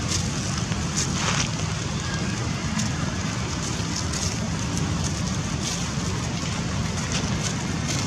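Light, irregular crackling of dry leaves, as from footsteps on a leaf-littered ground, over a steady low outdoor rumble.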